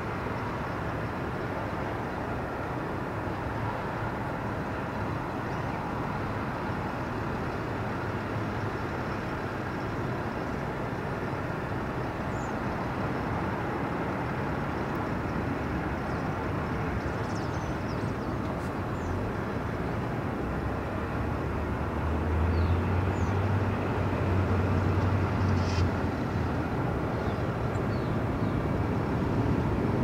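Steady outdoor background rumble, with a deeper low rumble swelling about two-thirds of the way in. A few faint, short, high chirps can be heard over it.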